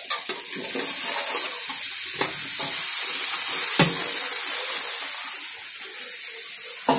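Raw green mango slices frying in hot mustard oil in a karahi: a steady high sizzle that swells about a second in as the pieces hit the oil. A few sharp knocks sound over it.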